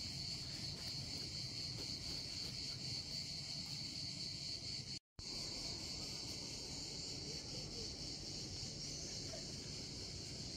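Insects chirring steadily in a continuous high-pitched drone, with a brief dropout about five seconds in.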